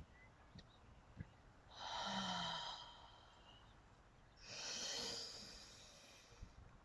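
A person breathing out audibly twice, each a long airy breath of over a second, about two and a half seconds apart. A few faint soft taps come before the first breath.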